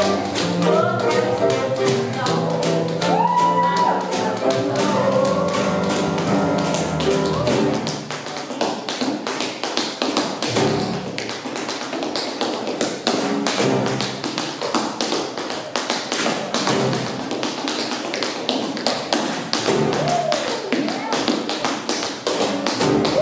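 Swing jazz band with trumpet and saxophone playing; about eight seconds in the horns drop out and a tap dancer solos, rapid tap-shoe strikes on a wooden floor over sparse backing from the band.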